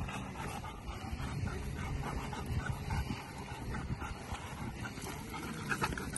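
Rottweilers panting and whining with excitement as they wait for a ball to be thrown.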